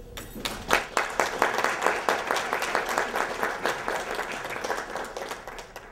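Audience applauding: many hands clapping, starting just after the opening and dying away near the end.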